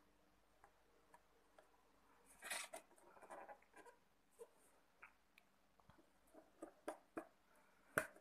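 Faint handling sounds of small plastic pet enclosures: a brief rustle about two and a half seconds in, then scattered light clicks and taps as a small plastic box is picked up and handled.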